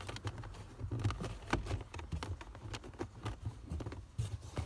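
Irregular light clicks and taps from hands working on a car's plastic centre console trim and the wiring beneath it, over a low handling rumble.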